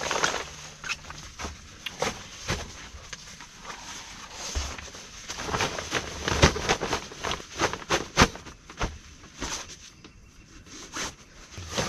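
Irregular clattering knocks and clicks with rustling, as of camp gear being handled and stacked; the knocks come thickest about halfway through.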